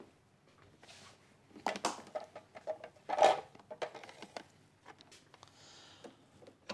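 A few knocks and clicks as a white plastic food processor is handled and fitted together on a countertop, the loudest about three seconds in. The motor is not running.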